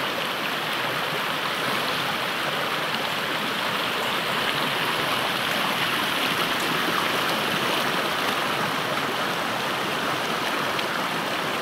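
River water flowing, a steady, unbroken rushing.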